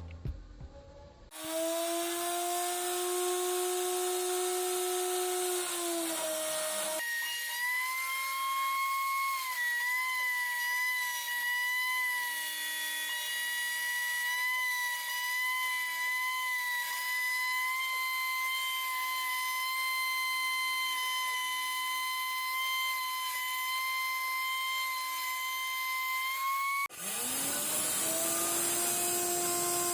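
CNC wood router's spindle whining steadily at a high pitch as it carves, over a hiss of cutting noise. The whine starts a second or so in, jumps abruptly to a higher pitch about seven seconds in, and drops back to the lower pitch near the end.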